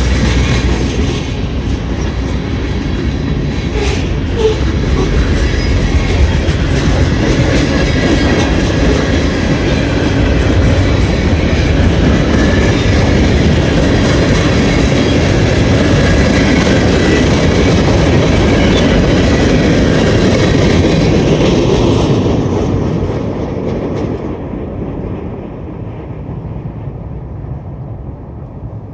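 Freight train cars rolling slowly past, wheels clacking over the rail joints with a steady rumble; the sound fades away over the last several seconds as the train moves off.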